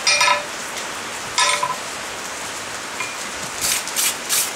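Hand hammer striking a red-hot steel flat bar on an anvil, with ringing blows at the start and again about a second and a half in. Near the end a wire brush is scrubbed across the hot bar in several quick strokes to clear off forge scale.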